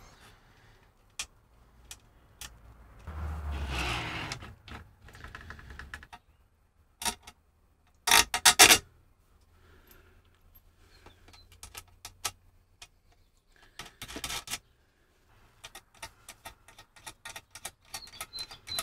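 Small metal hardware clicking and rattling as M3 bolts, springs and thumbscrew nuts are handled and fitted to a 3D printer's heated bed, with a soft rustle about three seconds in and louder knocks about eight seconds in.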